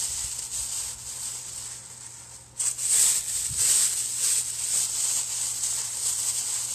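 Thin plastic shopping bags crinkling and rustling as they are crumpled by hand and stuffed into a fabric pumpkin. The rustling gets suddenly louder about two and a half seconds in.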